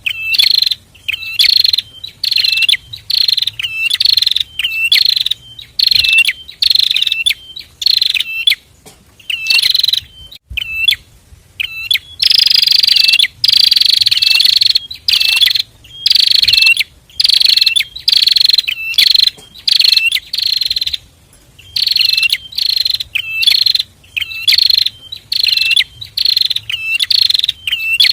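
Pair of prinias (prenjak) singing a rapid series of loud, buzzy, chattering notes, roughly two a second. The series runs into one longer unbroken buzzing trill about halfway through.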